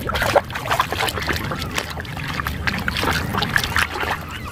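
A hand swishing and sloshing through a plastic basin of muddy water, with irregular splashes throughout.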